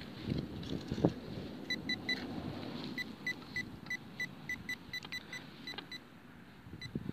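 A metal detector giving short, evenly spaced beeps at one steady pitch, about three a second for a stretch in the middle. Under it, a hand digging tool crunches and scrapes in loose soil, with one heavier thud about a second in.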